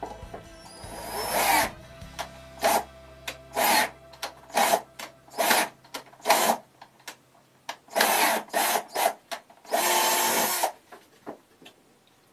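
Power drill boring into wood in a series of short bursts, about a dozen, each a fraction of a second, the longest nearly a second near the end.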